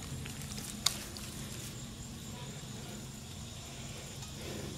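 Quiet outdoor ambience by the water: a steady faint low hum under a soft even hiss, with one short sharp click a little under a second in.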